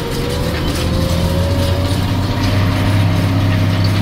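Tractor engine heard from inside the cab while the tractor pulls a spring-tine cultivator over frozen ploughed ground. It runs steadily, rising slightly in pitch during the first two seconds, with a light rattle throughout.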